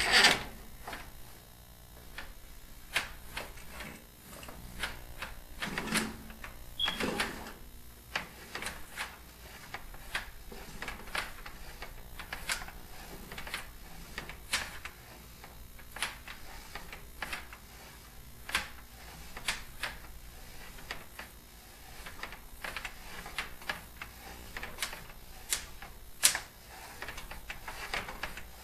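Irregular sharp clicks and knocks, roughly one or two a second, like a mechanism clattering at an uneven pace.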